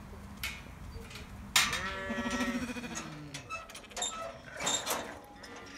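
A sheep bleats once, a long wavering bleat starting about a second and a half in and lasting over a second, with a few sharp knocks around it.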